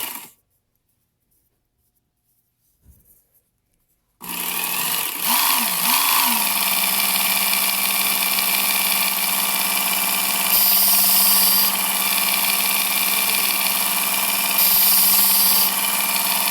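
Work Sharp Ken Onion Elite's belt motor stops, then after a few seconds of quiet starts up again and runs with a steady hum, its speed wavering briefly just after starting. Twice, for about a second each, a knife blade is drawn across the moving abrasive belt with a higher grinding hiss.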